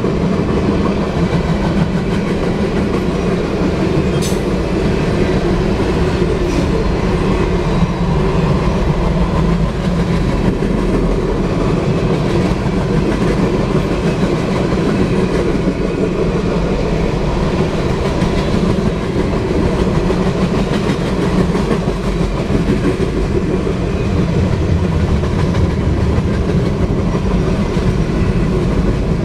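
Freight cars of a mixed manifest train rolling past at a grade crossing: a steady loud rumble and clatter of steel wheels on the rails, with a sharp clank about four seconds in.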